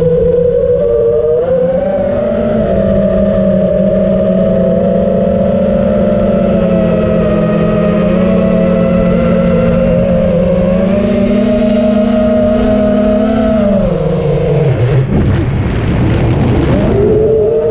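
FPV freestyle quadcopter's motors and propellers whining at a steady pitch. Near the end the pitch sags and a rough rush of wind noise comes through, then the whine climbs back up.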